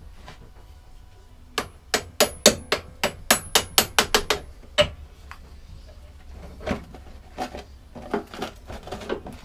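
Hammer striking a metal pin punch to drive the pivot bar out of a lawnmower's rear flap. It starts with a quick run of about a dozen sharp, slightly ringing blows, about four a second, then a few lighter, scattered taps.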